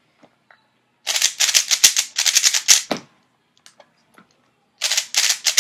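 Cubicle Premium Thunderclap 3x3 speedcube turned very fast by hand: two bursts of rapid plastic clacking, each about two seconds long, starting about a second in and again near the end, as timed last-layer algorithms are run.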